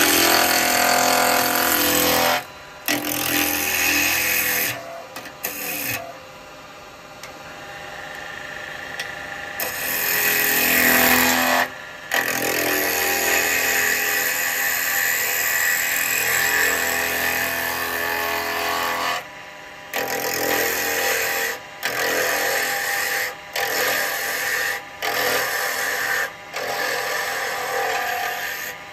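Wood lathe spinning a small bark-covered blank at about 2,500 rpm while a spindle gouge cuts it between centres, roughing the bark away: a loud, continuous cutting noise. It is broken by repeated short breaks where the gouge comes off the wood, and there is a quieter stretch of a few seconds about six seconds in.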